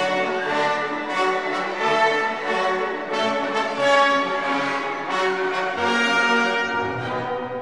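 Orchestral background music with brass and strings playing held notes.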